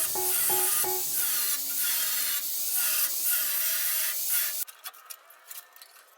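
Background music, the instrumental tail of a rap song, with repeated pitched notes over a hissy high end, cutting off suddenly about four and a half seconds in. After it, only faint scattered clicks.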